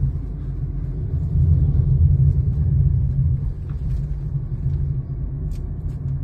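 Steady low rumble of road and engine noise inside the cabin of a small Suzuki hatchback driving at low speed.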